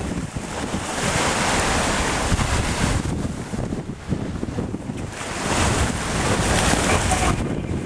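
Wind buffeting the microphone over the rush of sea water along a sailing boat's hull, swelling and easing twice.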